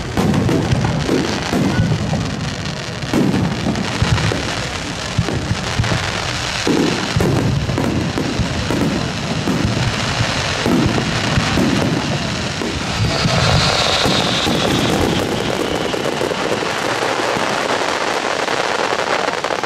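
Rapid barrage of aerial firework shells bursting, a dense run of overlapping booms and crackling with no break.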